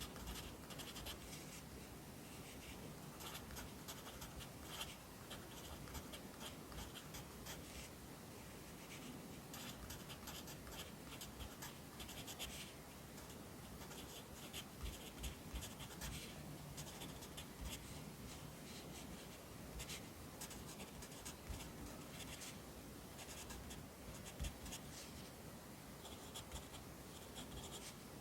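Pencil writing Korean characters on paper: quiet, quick scratching strokes in clusters with short pauses between them.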